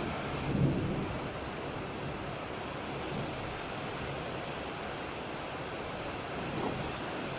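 Steady rain hissing, with a soft low swell of thunder about half a second in and another faint one near the end.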